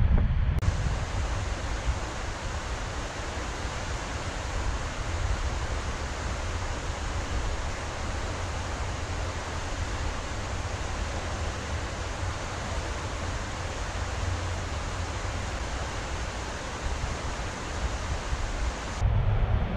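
Steady, even hiss of rushing water with a low rumble beneath, starting abruptly under a second in and cutting off just before the end.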